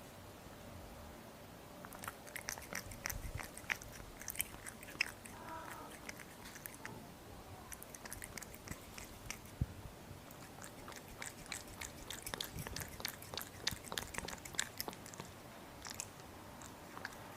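Kitten eating, making many small wet clicks and smacks as it chews and licks its food.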